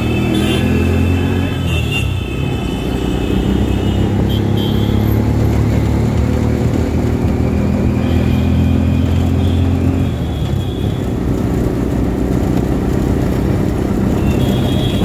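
Auto-rickshaw's small engine running steadily while the rickshaw drives along, heard from inside the open cabin; its note shifts about two seconds in and again near ten seconds. Short high-pitched tones sound a few times over the engine.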